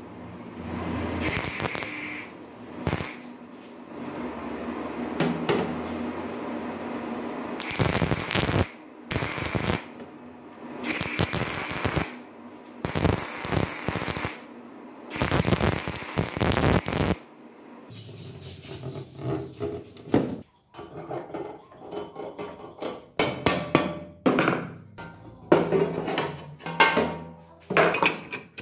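Stick welder crackling on a steel shaft in short bursts of a second or two, a string of tack welds, through the first half. Later come scattered light clinks and knocks of steel parts being handled.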